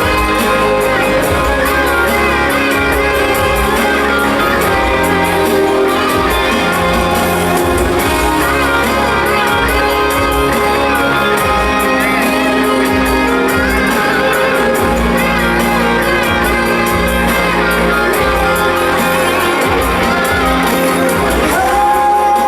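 Loud music with many instruments playing at once. Near the end a single high note comes in and is held.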